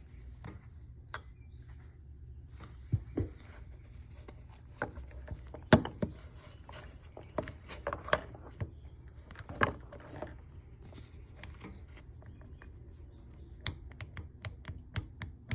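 Motorcycle engine running with a steady low hum, under irregular sharp knocks and clicks: the engine knock.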